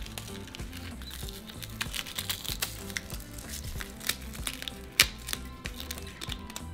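Background music over the dry crackle and crinkle of brittle dried red chile pods being torn open and de-seeded by hand. The crackles come as scattered short snaps, the sharpest about five seconds in.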